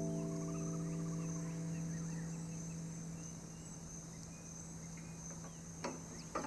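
Steady high chirring of insects, with faint short chirps, over a held low note of guitar music that slowly fades out. Two sharp clicks near the end.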